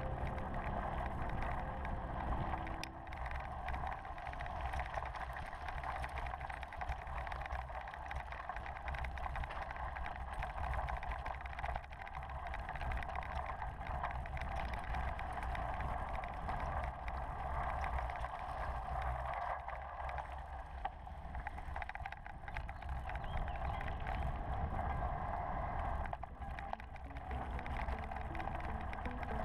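Mountain bike rolling fast over a dirt and gravel trail: steady tyre rumble and rattle of the bike over the rough ground, with wind noise on the camera. Background music fades out in the first few seconds and comes back in near the end.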